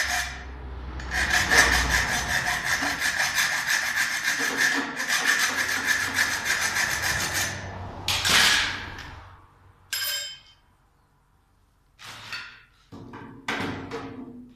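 Hacksaw cutting a thin metal rod to length in rapid back-and-forth strokes for about seven seconds, with a short break about half a second in. About ten seconds in comes a short metallic clink, and near the end a few knocks of plastic parts being handled.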